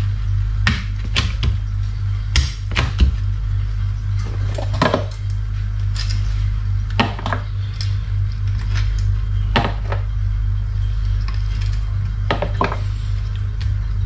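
A knife crunching through the crisp crackling skin of deep-fried pork belly (lechon kawali) on a wooden cutting board: irregular sharp crackles and knocks of the blade on the board, over a steady low hum.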